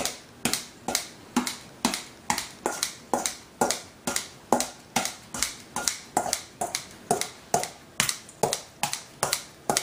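Kitchen scissors snipping rice vermicelli in a stainless steel bowl, a sharp snip about twice a second in an even rhythm.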